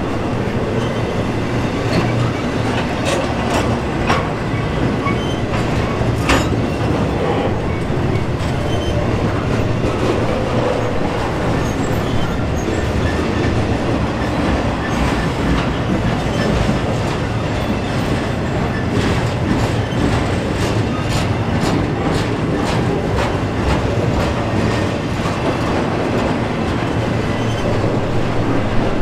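Intermodal container train cars rolling steadily past, wheels clicking over the rail joints, the clicks coming more often in the later part.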